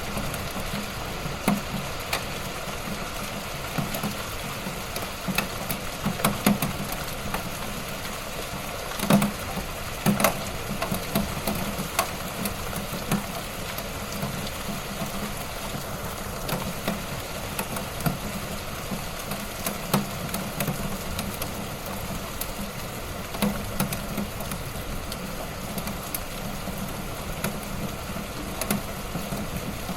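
Light rain falling steadily, a constant patter with many separate drops tapping close by at irregular moments, a few louder taps about nine and ten seconds in.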